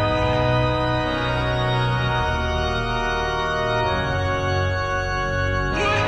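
Background music of long held chords that shift every second or two, with a fresh chord striking in just before the end.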